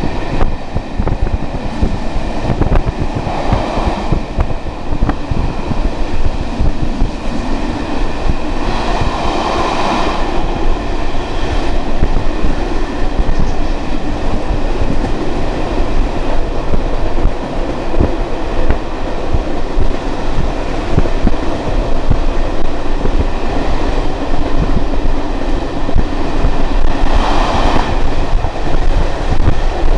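Passenger train hauled by a Class 57 diesel locomotive running at speed, heard from aboard a coach: a steady rumble and rattle of wheels on the rails with rushing air. The noise swells briefly three times.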